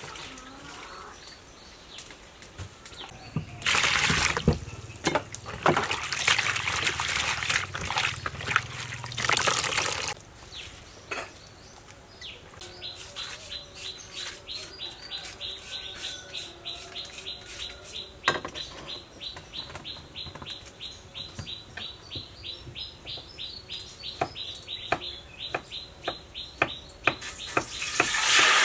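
Hands splashing and sloshing water in a plastic basin while washing food. Then a blade works through vegetables in quick, even strokes, about three or four a second. Near the end, hot oil starts to sizzle loudly as fish fries.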